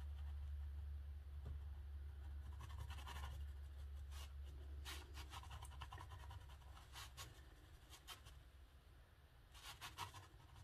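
Faint scratching of an indigo watercolour pencil on rough watercolour paper, in several short runs of strokes with pauses between them.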